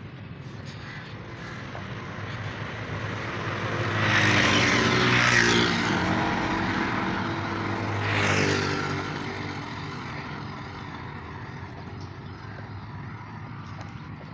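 Road traffic passing close by: one vehicle goes by about four to six seconds in and a second about eight seconds in. Each brings engine and tyre noise that swells, drops in pitch as it passes, and fades.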